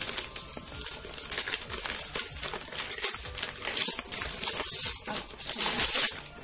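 Gift wrapping paper rustling and crinkling as it is pulled and torn open by hand, in irregular crackling handfuls, loudest near the end.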